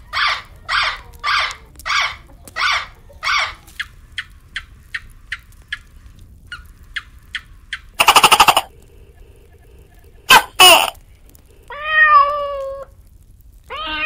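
A parrot squawking about seven times in a steady run, then a series of faint quick clicks, a loud harsh burst about eight seconds in and two more shortly after ten seconds, and a kitten meowing once near the end.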